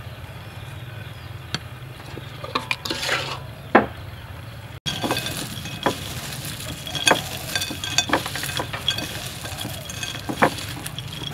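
A few scattered clicks, then from about five seconds in a dense rattle of roasted peanuts rubbed and stirred by hand in a ceramic bowl, the nuts clicking against each other and the bowl as their papery skins come loose.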